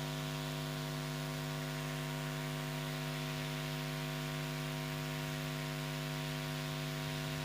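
Steady electrical mains hum, a low buzzing drone with a faint hiss over it, unchanging throughout.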